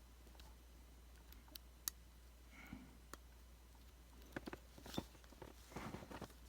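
Faint, scattered small clicks and taps from handling the iPhone 5c's small internal parts as a part is eased into place against the casing, a few coming close together near the end, over a low steady hum.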